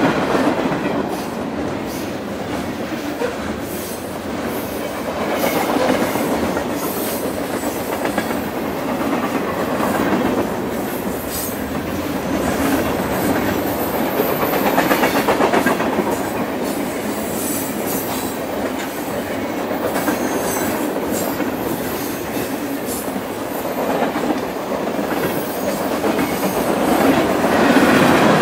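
Freight train of tank cars, covered hoppers and boxcars rolling past close by: steel wheels clicking over the rail joints over a steady rolling rumble that swells and eases as the cars go by.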